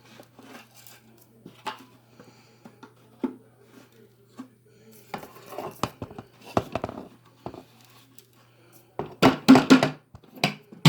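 Light clatter, clicks and knocks of small hard objects being handled, with a faint steady low hum that fades out near the end. A short burst of voice comes near the end.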